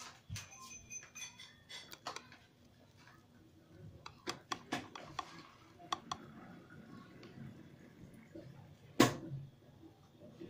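Knife blade cutting through syrup-soaked semolina cake in a glass baking dish, clicking and tapping against the glass in scattered strokes, with one sharp, louder knock about nine seconds in.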